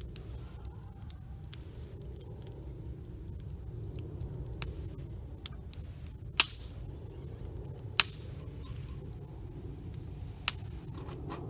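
Wood campfire crackling, with small ticks and a few loud sharp pops over the low, steady rush of the burning fire.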